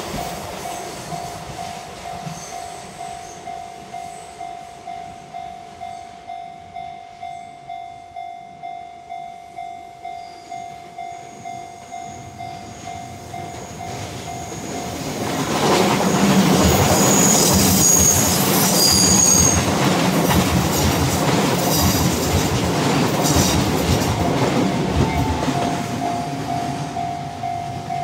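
Level crossing warning bell ringing about twice a second. From about 15 seconds in, a Shin-Keisei N800 series electric train comes around the curve and runs past over the bell, its wheels squealing on the curve.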